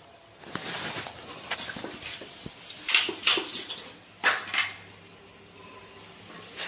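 Raw green papaya being cut on a boti, a curved iron blade fixed at floor level. A run of scraping cutting strokes through the papaya, with louder cuts in two pairs about three and four seconds in.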